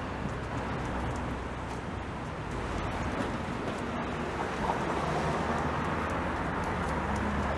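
City street traffic: cars passing in a steady wash of road noise with a low engine rumble.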